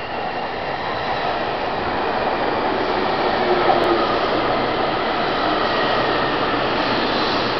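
Taiwan High Speed Rail 700T electric train pulling into a station, its carriages rolling past: a rushing rumble of wheels and air that grows louder over the first few seconds and then holds steady.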